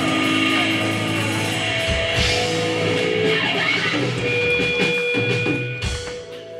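Live grindcore band playing loud distorted electric guitars and drums; near the end the playing drops away, leaving a steady held ringing tone.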